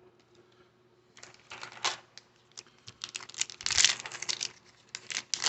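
Baseball trading cards being handled and flipped through, giving an irregular run of light clicks and rustles that start about a second in and are loudest a little before the end.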